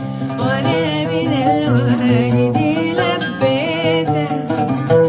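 A boy's voice singing a slow Arabic song with wavering, bending ornaments on held notes, accompanied by a plucked oud.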